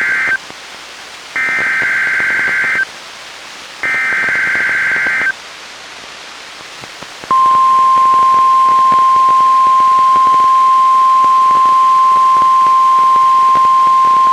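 NOAA Weather Radio SAME digital header: the tail of one burst and two more bursts of rapid warbling two-tone data, each about a second and a half, with radio hiss between them. About seven seconds in, the steady 1050 Hz warning alarm tone starts and holds.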